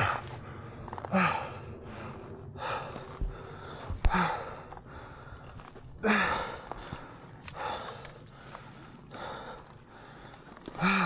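A man breathing heavily, out of breath from exertion: about seven loud panting breaths and gasps, one every one and a half to two seconds, some of them voiced.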